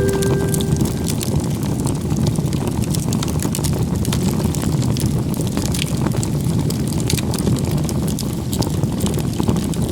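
Wood campfire crackling: many small sharp pops scattered over a steady low rumble.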